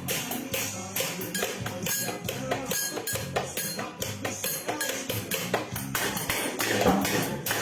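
Music with a fast, steady percussive beat over sustained low bass notes.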